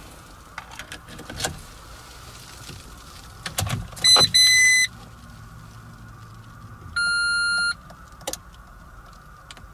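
Car ignition key clicking into the lock and turning, then the instrument cluster's warning chime beeping: two high beeps about four seconds in, and one longer, lower beep about seven seconds in, with the ignition on before the engine is cranked.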